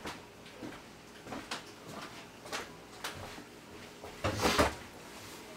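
Scattered light knocks and clicks, with a louder clatter about four seconds in, from someone handling things while fetching a knife in a kitchen.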